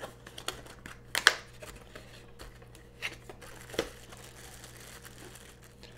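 Cardboard retail box being opened and plastic-bagged accessories lifted out: scattered paperboard scrapes and plastic-wrap crinkles, the loudest just over a second in.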